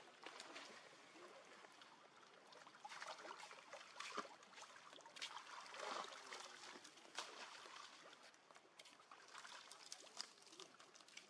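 Faint, irregular trickling and splashing of water, with scattered small clicks.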